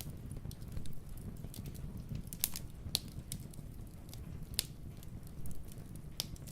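Wood fire crackling in a fireplace: scattered sharp pops, the loudest about two and a half, three, four and a half and six seconds in, over a low steady rumble.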